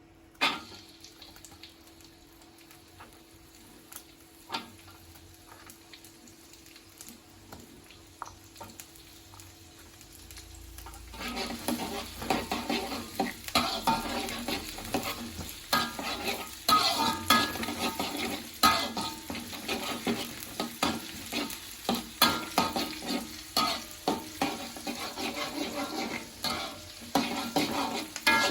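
Chopped onion (bawang) frying in hot oil in a pan, sizzling, with a spatula clicking and scraping against the pan as it is stirred. For the first third there are only a few scattered clicks over a faint low hum; then the sizzling and frequent stirring start and grow louder.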